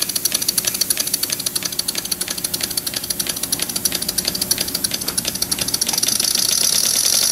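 PM Research twin-cylinder model steam engine running at low pressure, its exhausts giving a rapid, even chuff. It grows louder and hissier near the end as the pressure is raised.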